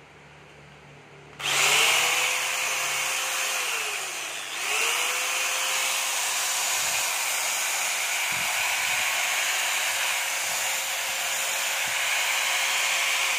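Makita corded electric chainsaw, its motor rewound for 220 V, starting about a second and a half in, winding down after a couple of seconds, then starting again and running steadily as its chain cuts into a wooden block. It winds down at the end.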